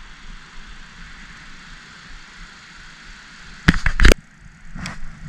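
Steady hiss of wind outdoors. A cluster of loud, sharp knocks comes about three and a half seconds in, and one more knock near the end.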